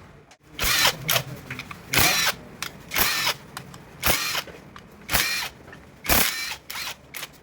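Power drill-driver run in short trigger bursts, about one a second, each a brief rising motor whine.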